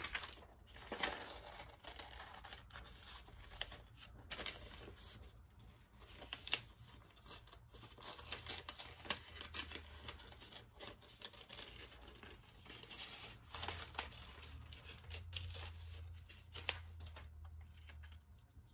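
Hand scissors cutting through paper in an irregular run of snips, with the paper rustling as it is turned and handled.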